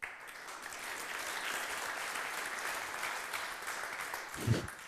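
Audience applauding in a lecture hall, starting suddenly and thinning out near the end. A brief low thud stands out about four and a half seconds in.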